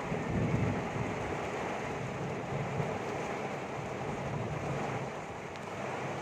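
Storm wind blowing hard over the microphone: a steady rushing noise with rumbling gusts, the strongest about half a second in.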